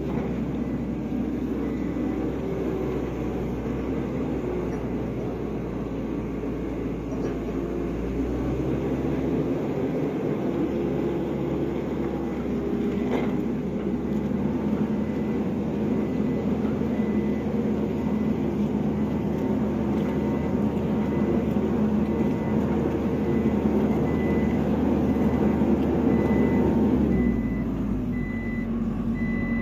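New Holland skid steer's diesel engine running under load while a pallet of bluestone is loaded, its note dropping about two seconds before the end. A reversing alarm then starts beeping steadily.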